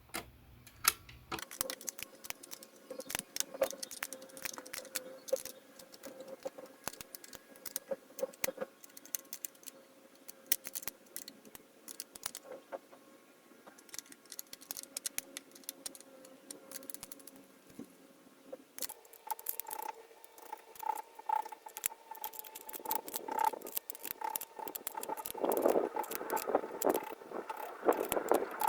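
Small metal clicks and rattles of nuts being run onto bolts and tightened by hand and with a small spanner, drawing a part down into place against aluminium. The clicking is irregular and gets busier and louder in the last third, over a faint steady hum.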